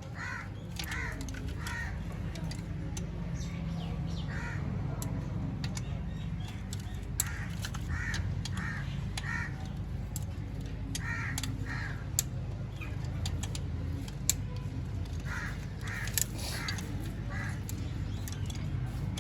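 Crow cawing in runs of three or four calls, repeated several times over a steady low hum, with a few sharp clicks in between.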